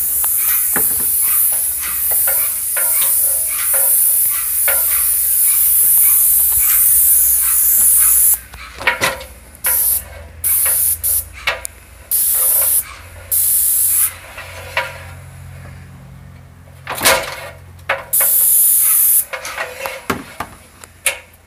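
Paint spray gun hissing as paint is sprayed onto a wall. It runs in one long steady spray for about the first eight seconds, then in a series of short bursts as the trigger is pulled and released, with a low steady hum underneath.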